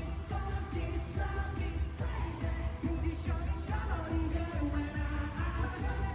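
K-pop song playing: sung vocals over a heavy, steady bass beat.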